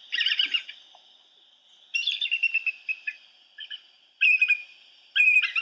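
Bald eagle calling: several series of rapid, high-pitched chittering notes, broken by short pauses.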